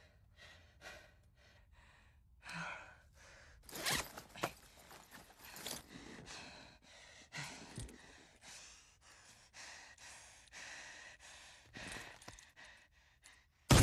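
A man breathing hard, sighing and gasping, with a few soft knocks and clicks inside a car cabin.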